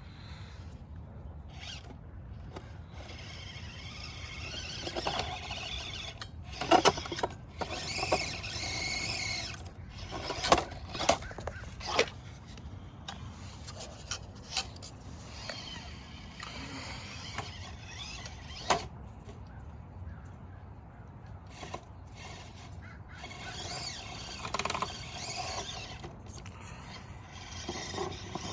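Axial SCX24 1/24-scale RC crawler driving, its small electric motor and gears whining in stretches, with several sharp knocks and clicks of the truck against obstacles, a cluster of them near the middle.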